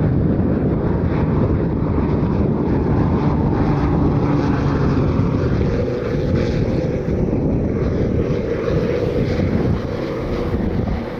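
Propeller engines of a firefighting water-skimmer aircraft droning steadily, with wind buffeting the microphone.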